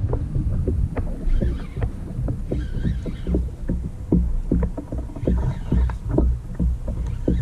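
Water lapping and knocking against the hull of a NuCanoe Pursuit fishing kayak, with a steady low rumble and many irregular small knocks and splashes.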